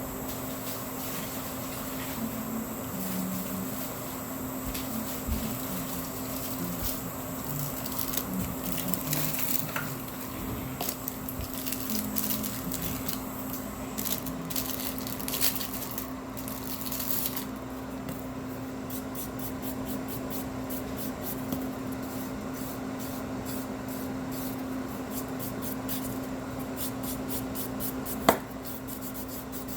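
Hand nail buffer rubbed across an artificial nail tip in quick back-and-forth strokes, shaping and smoothing its curve, over a steady low hum. One sharp click near the end.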